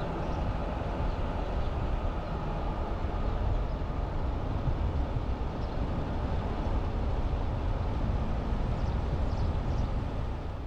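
A vehicle driving along a paved road, with steady road and engine noise. The low rumble is heaviest, and it holds level without a break.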